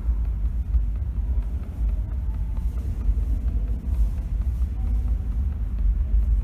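Steady low rumble of subway station background noise, heavy in the bass and without any distinct event.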